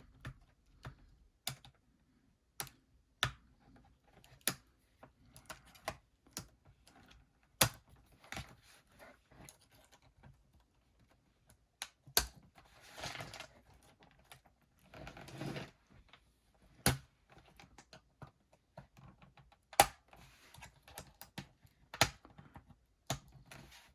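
Scattered sharp plastic clicks and taps from a laptop keyboard being pried up out of its retaining tabs with a thin tool, with two brief scraping sounds about halfway through.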